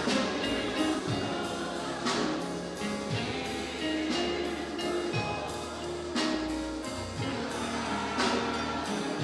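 Instrumental gospel accompaniment to a church song: held chords with a beat struck about once a second, played between sung lines.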